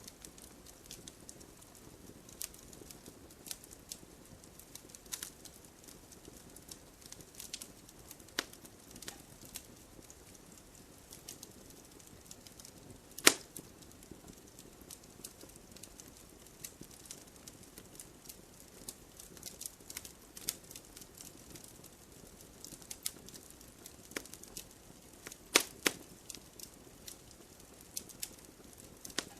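Campfire crackling: irregular small snaps and pops over a soft low hiss, with one loud pop about halfway through and a few sharper cracks near the end.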